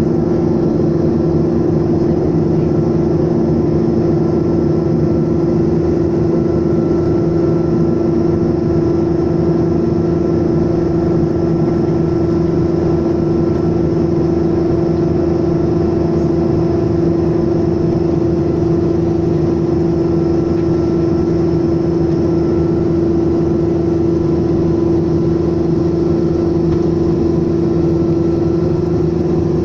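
Turboprop airliner's engine and propeller running steadily at taxi power after landing, heard from inside the cabin beside the engine: a loud, even hum with a strong low pitch.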